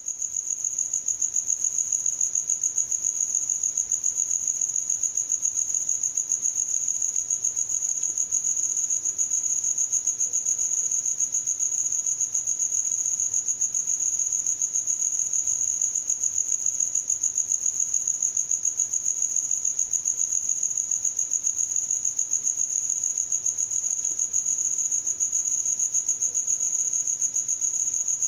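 A cricket chirping without pause: a high, shrill song that pulses in quick, even chirps.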